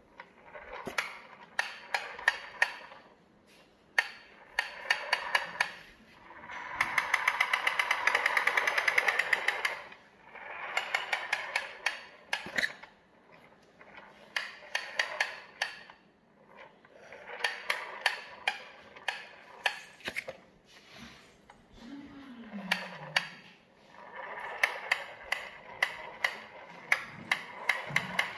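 Plastic toy truck pushed across a tiled floor, its wheels clicking rapidly in bouts of a few seconds with short pauses between.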